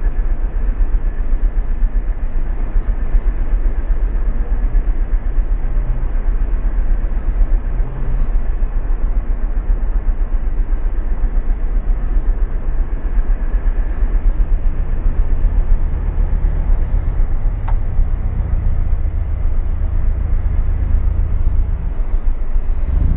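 Vehicle engines of motorcycles and cars on the road making a steady deep rumble, heavier through the second half as traffic passes; one faint tick near the end.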